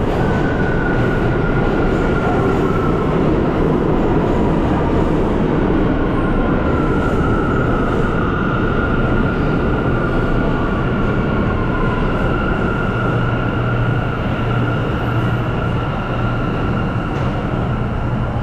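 New York City subway train pulling into an underground station: a loud, steady rumble with long, high, drawn-out tones from the wheels and motors riding over it. A low hum grows stronger in the second half as the train slows.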